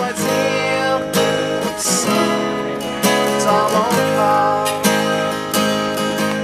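Acoustic guitar strummed in a steady rhythm while a man and a young girl sing along.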